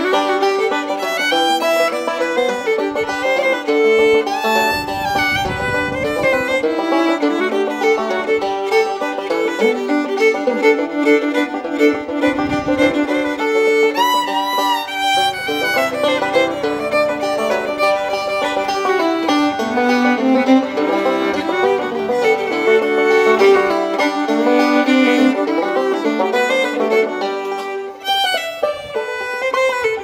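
Background music: a lively fiddle tune with plucked-string accompaniment.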